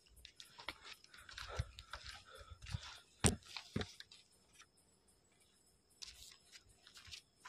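Crunching and scraping of footsteps and handling on dry, stony ground as a phone camera is carried and set down, with two sharp knocks a little past three seconds in as it comes to rest on the ground, then scattered small clicks.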